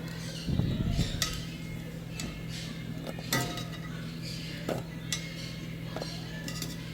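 Kitchen utensils clinking and knocking against a cooking pot, a few scattered sharp clinks over a steady low hum, with a louder rattle about half a second in.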